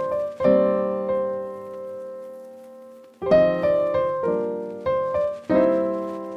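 Background music on piano: chords struck and left to ring. A long chord fades out over a couple of seconds, then shorter chords follow about every half-second to a second.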